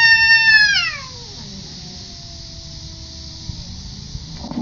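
A cat's long, loud yowl, held steady then falling in pitch, ending about a second in, followed by a fainter, lower drawn-out yowl that stops after about three and a half seconds: a cat in trouble yelling for backup during a standoff with another cat.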